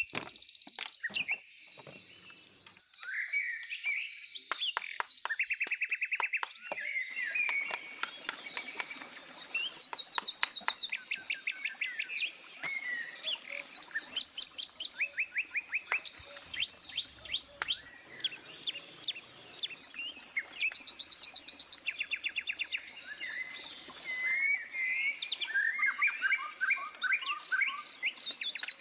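Birds singing: many overlapping chirps and fast trills of short, high, evenly repeated notes.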